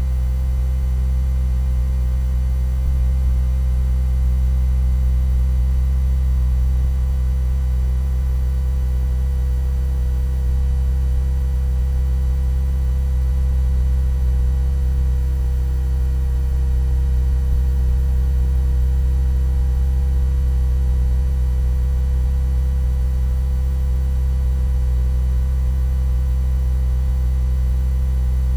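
A steady, unchanging low hum with a few faint steady tones above it.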